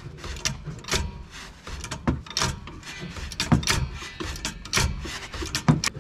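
Irregular metallic clicks, clinks and knocks of hand work on a car's rear shock absorber as it is refitted to the suspension, over a low steady rumble.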